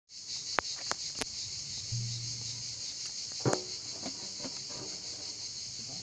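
A steady, high-pitched chorus of summer insects runs throughout. A few sharp taps come in the first second and a half, and a louder knock comes about 3.5 seconds in.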